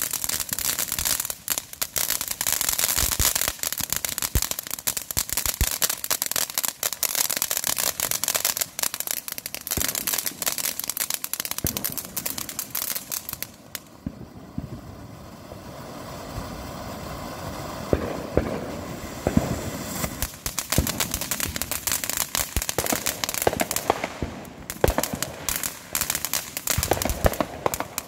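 Consumer firework fountains crackling, with dense rapid popping and hiss. The crackling thins out about halfway to a softer hiss with scattered pops, then thickens again near the end.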